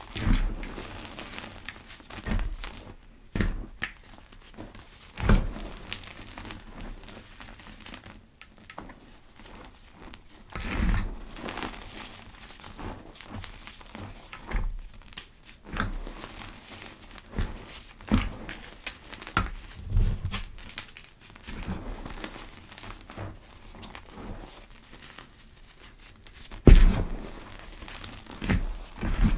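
Gym chalk pebbles crushed and crumbled by hand: a run of irregular soft crunches and crackles with dull thumps, the loudest near the end.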